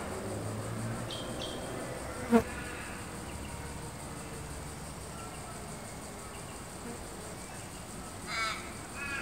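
Outdoor wetland ambience: a faint steady insect buzz, with a few short bird chirps about a second in, one sharp, loud call about two and a half seconds in, and two quick harsher calls near the end.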